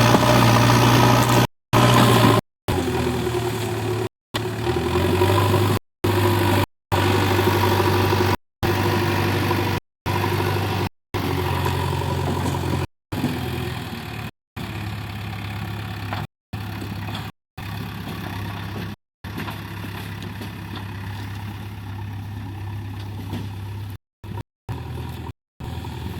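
JCB 3DX backhoe loader's diesel engine running steadily, broken every second or two by short gaps of dead silence. It gets quieter about halfway through.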